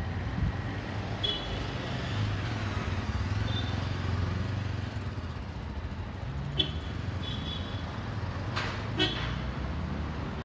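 City street traffic noise with a car engine running low and steady, and about five short horn toots spread through it.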